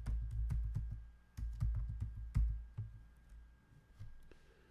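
Typing on a computer keyboard: a quick run of key clicks with dull thumps over about three seconds, then one more keystroke near the end.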